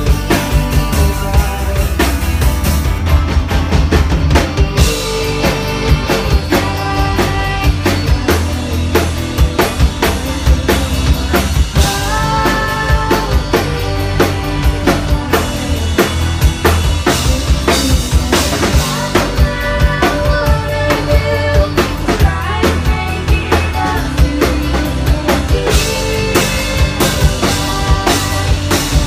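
Live rock band playing a song: a drum kit with steady bass drum and snare hits to the fore, electric bass and guitar, and two female vocalists singing.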